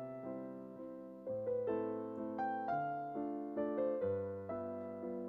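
Soft background piano music: a slow, gentle melody of struck notes over sustained bass notes.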